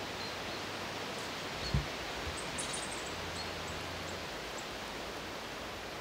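Steady outdoor background hiss in a forest, with one short low thump about two seconds in. A faint run of very high, thin notes falls in pitch just after the thump.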